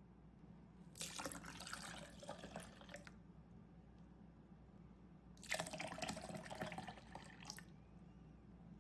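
Milk being poured into a blender jar, in two pours of about two seconds each.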